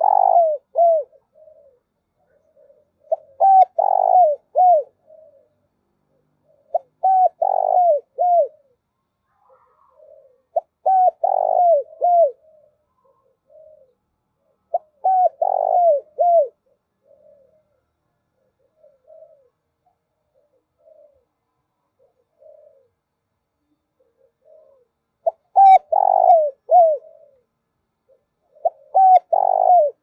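Spotted dove cooing: phrases of three or four short, falling coos repeat about every four seconds. A stretch of only faint single notes comes in the middle, then two more full phrases near the end.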